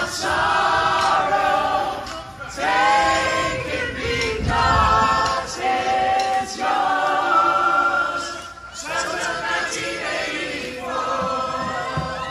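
A large group of voices singing together in chorus, a rock song's sing-along refrain in phrases of about two seconds with short breaks between them.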